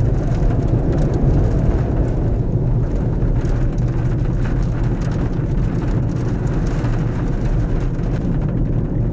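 Strong wind from a nearby tornado blowing steadily around a vehicle, a dense low rumble heard from inside the cab, with light ticking of rain against the windshield.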